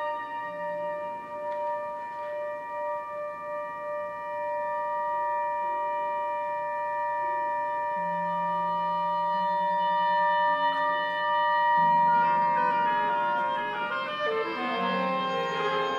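Contemporary classical music played by an instrumental ensemble. A high chord is held steadily while low notes shift beneath it, and about twelve seconds in many more notes enter, thickening into a dense, slightly louder cluster.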